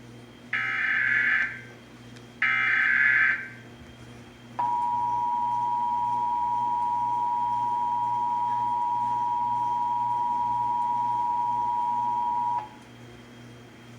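Emergency Alert System broadcast tones for a National Periodic Test: the last two of the three SAME header data bursts, each a harsh digital screech about a second long, then about a second later the EAS two-tone attention signal, held steady for about eight seconds before cutting off sharply.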